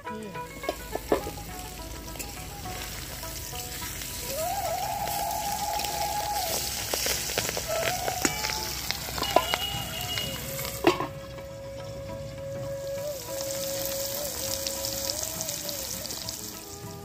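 Pangas fish steaks sizzling as they fry in hot oil in a kadai, with a steady hiss and scattered sharp spattering pops; pangas fish spatters hard in the oil.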